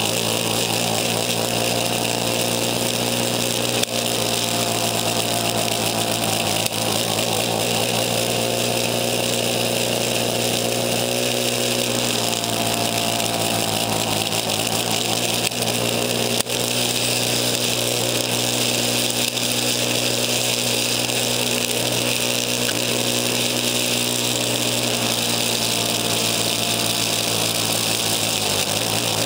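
Craftsman snowblower's engine running steadily under load while it clears snow and throws it out of the chute, with a strong hiss over the engine note, heard through a handlebar-mounted camera's mic. A couple of brief knocks stand out, one about four seconds in and one past the middle.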